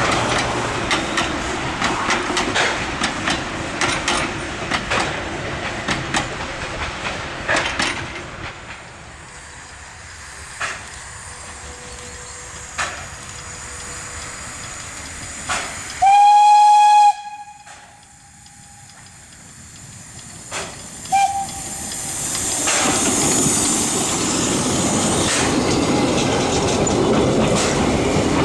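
Px29 narrow-gauge steam locomotive and its coaches running past, with quick clicks of wheels over rail joints. Midway the locomotive's steam whistle gives one loud blast of about a second, then a short toot a few seconds later, and the train then rolls close by with its wheels clattering.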